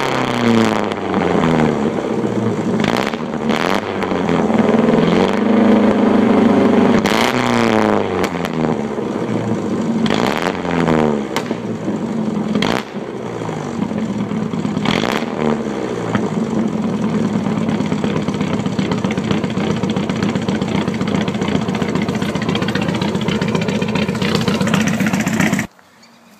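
Volvo 245's four-cylinder engine through a straight-through 'bus pipe' exhaust, revved up and let down again and again, then idling steadily, until the sound cuts off suddenly near the end.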